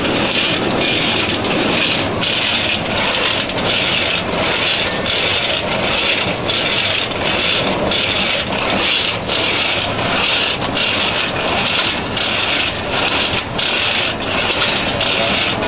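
Cashew cutter machine running, its blade mechanism cycling in an even rhythm about twice a second.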